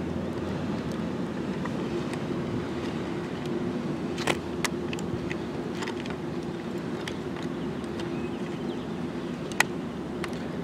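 Steady low rumble of a motor vehicle engine running, with two sharp clicks, about four seconds in and near the end.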